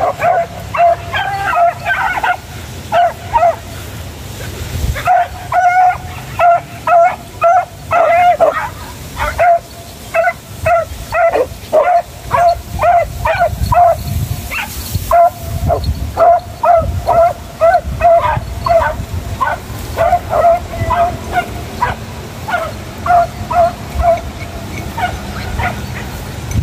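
Hunting dogs yipping and barking in quick, repeated cries, about two to three a second with a few short pauses. This is the running cry of dogs on the scent of quarry, here a mongoose.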